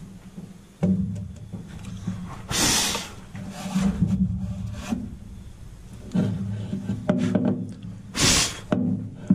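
A hand brushing sawdust and wood chips across a wooden truck-bed floor: rubbing swipes, two of them loud and brief about two and a half seconds in and near the end, with light knocks between.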